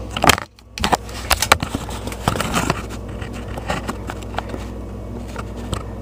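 Irregular clicks and short scrapes of a knife blade scraping away the plastic ridge inside a garbage disposal's dishwasher inlet, densest in the first three seconds, over a steady low hum.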